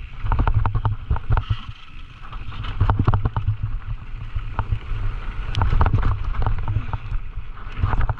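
Wind buffeting the microphone with a heavy rumble, over frequent rattles and knocks from a Scott Gambler 920 downhill mountain bike riding over rough trail.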